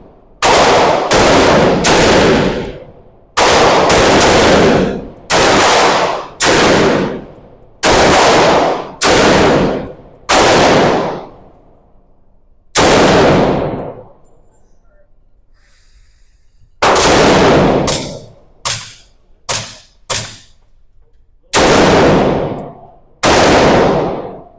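Gunshots at a shooting range: about twenty single shots, mostly a second or less apart, each trailing off in a long echo, with a pause of a few seconds around the middle.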